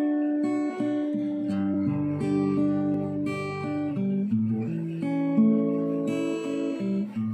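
Background music: acoustic guitar strumming a slow run of chords.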